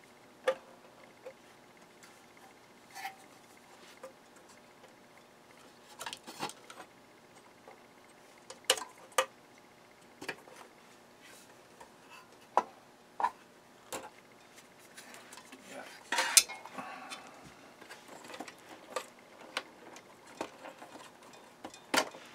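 Irregular clicks, metallic clinks and knocks of hands working inside a steel desktop PC case, handling cables and connectors and lifting out the sheet-metal drive cage. The loudest knock comes about three-quarters of the way through, followed by a brief rustle.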